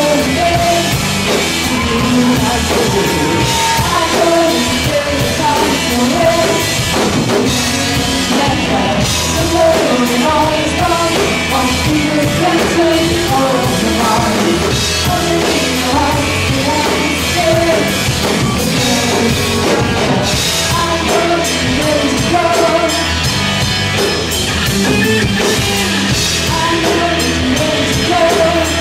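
A rock band playing a powerpop song, with a drum kit keeping a steady beat under a sung melody.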